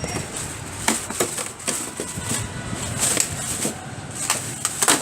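Packaging being handled and pulled apart: irregular rustles, scrapes and knocks from cardboard, plastic wrap and styrofoam, with several sharper crackles.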